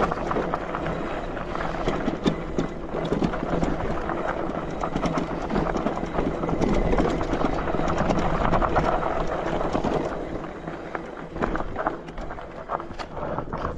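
E-bike riding over a rocky dirt singletrack: tyres crunching and clattering over loose stones, with the bike rattling. The clatter grows quieter and sparser over the last few seconds.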